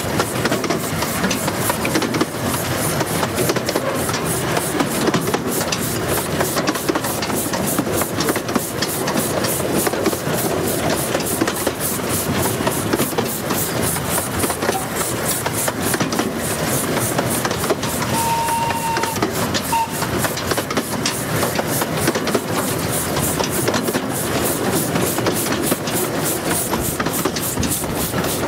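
15-inch gauge miniature steam locomotive running with its train, heard from the leading carriage: a fast, even rhythmic beat over a steady rush of running and rail noise.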